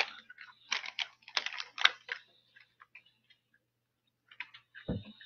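Crunching of candy-shelled jalapeño peanut M&M's being chewed close to the microphone, in irregular bursts over the first two seconds, then a few faint ticks and a soft thump near the end.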